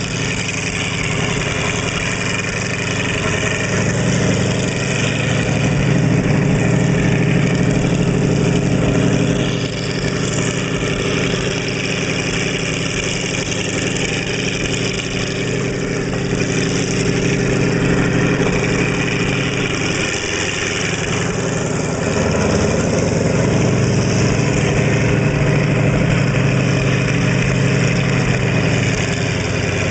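A vehicle engine running steadily under way, with a brief dip in the engine note about two-thirds of the way through before it picks up again.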